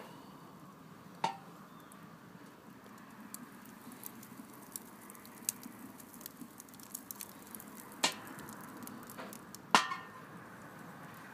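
Steel door of a gas-bottle wood stove clanking as it is opened about a second in, a wood fire crackling with small ticks, then the door shutting with a louder metal clank near the end.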